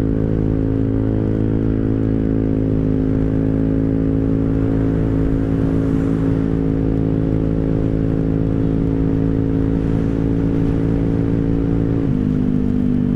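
Rusi Rapid 150 scooter's single-cylinder engine running through an aftermarket full-system exhaust, held at steady half throttle while riding. The note stays even and drops slightly in pitch near the end.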